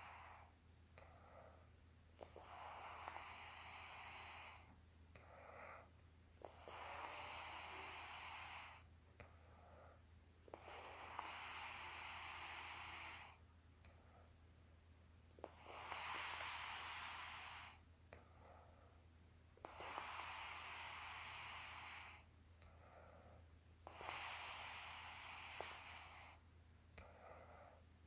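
A sleeping woman's soft, breathy snoring: six long hissing breaths about every four seconds, each followed by a shorter, quieter one. A steady low hum runs underneath.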